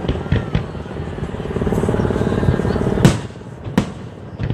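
Aerial fireworks shells bursting at close range: a string of bangs over a dense rumbling crackle. The loudest bang comes about three seconds in, with another under a second after it.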